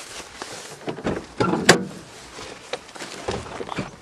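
Knocks, rustling and clicks of someone climbing into a car's cabin, with one sharp, loud click a little under two seconds in.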